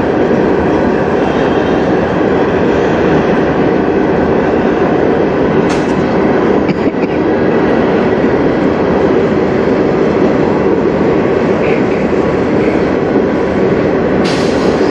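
Freight train of bulkhead flatcars rolling past close by: loud, steady wheel and rail noise, with a brief sharp metallic sound about six seconds in and another near the end.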